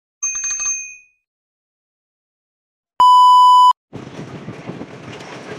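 A brief electronic title sound effect with two steady high tones, a couple of seconds of silence, then a loud, pure beep lasting under a second. Even outdoor background noise starts right after the beep.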